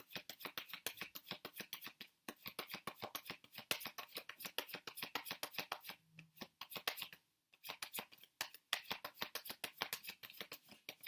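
Tarot cards being shuffled by hand: a fast run of crisp card-on-card flicks, about seven a second, broken by a few short pauses.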